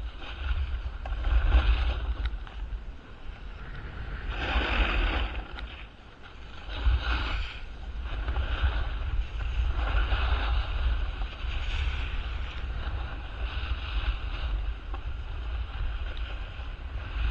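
Wind rumbling on the microphone of a camera moving downhill, with the hiss of edges scraping over packed snow swelling every second or two on each turn.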